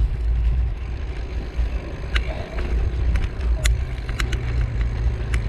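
Wind buffeting the microphone of a camera on a moving bicycle, heard as a heavy low rumble, over tyre noise on a concrete road. From about two seconds in come several sharp clicks and rattles from the bike.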